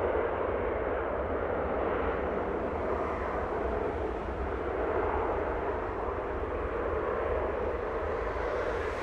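Jet airliner engines running: a steady roar with a deep rumble underneath.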